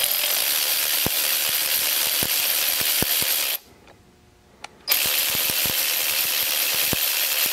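Hercules cordless ratchet spinning a Capri universal impact socket with no load, its motor and gears running steadily with scattered light clicks. It runs for about three and a half seconds, stops for about a second, then runs again for about three seconds.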